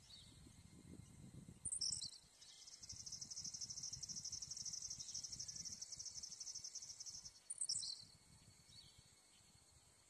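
A high, rapidly pulsing insect trill that starts about two seconds in, runs for about five seconds and stops, with a short, sharp chirp just before it begins and another just after it ends.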